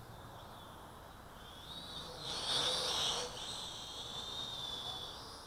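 Mini quadcopter's motors and propellers whining high, the pitch wandering up and down with the throttle. It swells loudest about two and a half seconds in as the quad passes close, then fades.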